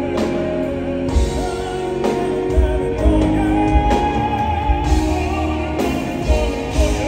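Male vocal quartet singing a ballad live, the lead passing from one singer to another, over a band with drum kit and keyboards. A steady drum beat runs under it.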